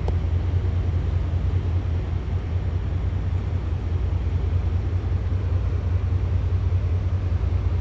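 Steady low rumble of the passing self-unloading lake freighter CSL Niagara, its diesel engine droning without a break.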